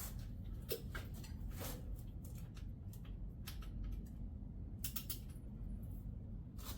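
A few scattered light metallic clicks and clinks from a torque wrench and socket being fitted and worked on a cylinder head bolt, over a low steady hum.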